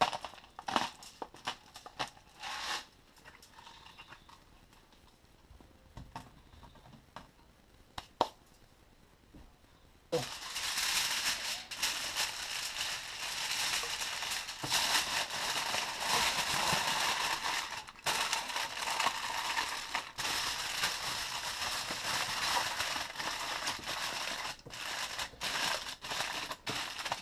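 A few short grinding clicks from a hand salt grinder, then from about ten seconds in a long stretch of aluminium foil crinkling and crackling as it is folded and crimped into a closed packet.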